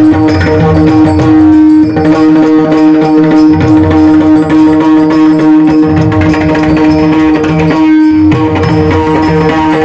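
Devotional bhajan music: a hand drum plays a steady rhythm under a note held throughout.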